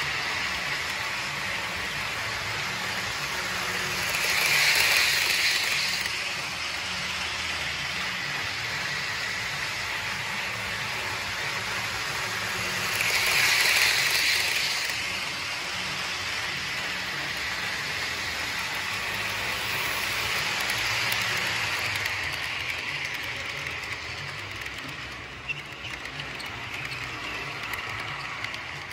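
Model trains running on a layout: a steady rushing whirr with a light rattle of small wheels on track from a freight train passing close by. It swells twice as the Amtrak passenger train comes by on the farther track.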